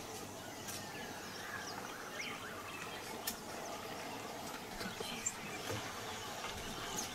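Outdoor ambience: steady background noise with scattered short bird chirps, and two sharp clicks about three and five seconds in.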